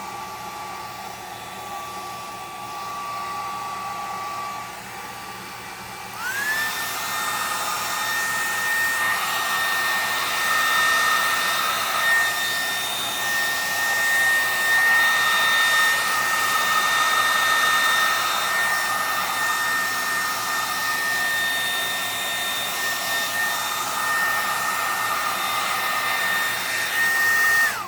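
Loud hair dryer running steadily; about six seconds in its whine jumps higher and the blowing gets louder, as on a higher speed setting, and it cuts off suddenly at the end.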